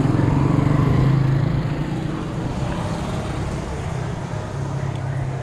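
Motor vehicle passing close by: a steady low engine hum, loudest in the first second and a half, over continuous road noise.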